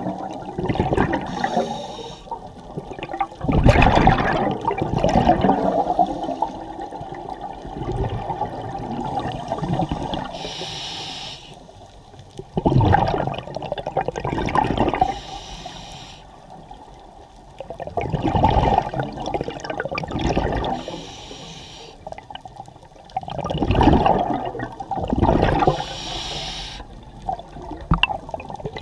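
Scuba diver breathing through a regulator underwater: a short hiss on each inhale and a loud rush of bubbles on each exhale, repeating every few seconds.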